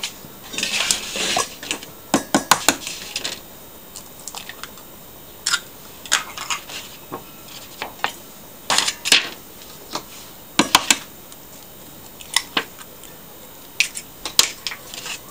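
Eggs being cracked and tipped from a plastic plate into a stainless steel mixing bowl: scattered sharp taps and clinks of shell, plate, bowl and spoon, some in quick clusters.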